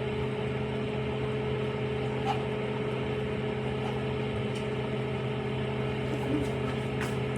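Microwave oven running with a steady hum, heating fryums, with a few faint ticks.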